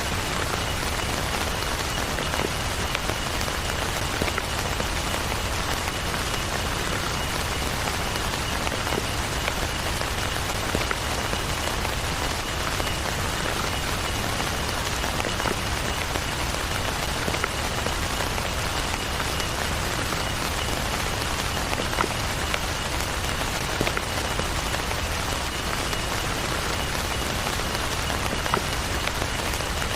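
Heavy rain falling steadily, with scattered single drops ticking out above the constant patter.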